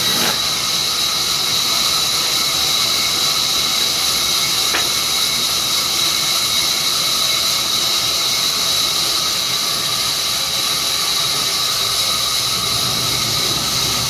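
Belt-driven band saw running steadily, with a high-pitched whine over a constant hiss.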